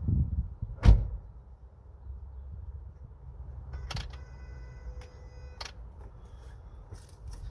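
A car door shuts with a heavy thump about a second in, over the low steady rumble of the idling engine. A few sharp clicks follow later.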